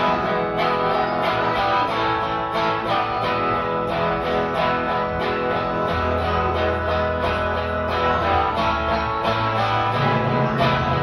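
Live rock band playing: a strummed guitar over bass guitar and drums, in a steady rhythm, with low bass notes held for a couple of seconds at a time in the second half.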